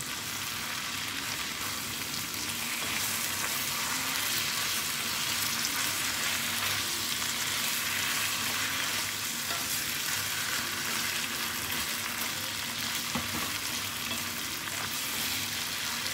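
Pieces of roast chicken in a thick sauce sizzling in a hot pan while being stirred with a wooden spatula: a steady frying hiss with occasional scrapes of the spatula.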